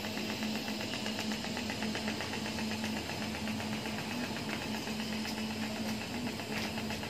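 Electric arc welding on a stainless steel exhaust pipe joint: a steady buzzing hum with a fine, rapid, even crackle.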